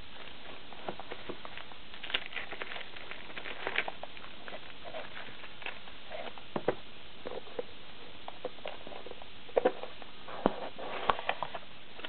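Cardboard box and plastic packaging being handled: scattered taps, scrapes and crinkles, with a few sharper knocks near the end, over a steady hiss.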